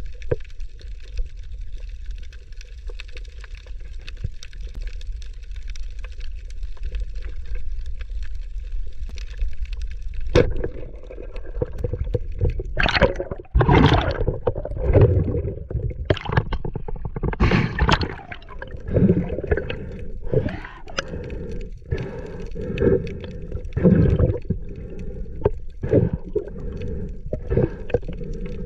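Water noise on a spearfisher's underwater action camera. For about the first ten seconds there is a steady low rumble. After that a louder, uneven water noise swells and falls every second or two as the swimmer moves up toward the surface.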